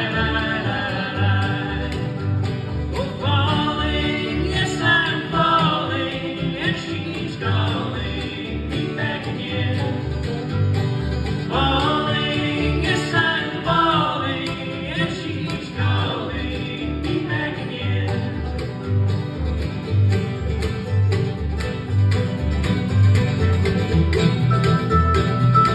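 Bluegrass band playing live: mandolin, banjo, acoustic guitars and upright bass over a steady bass pulse, with sung phrases through the first half giving way to an instrumental stretch.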